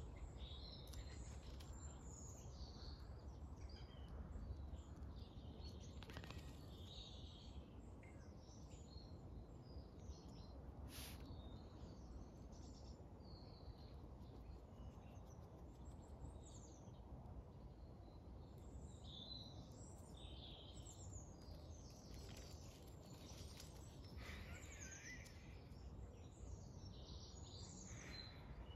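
Songbirds chirping and singing in short, scattered phrases over a faint, steady low outdoor rumble.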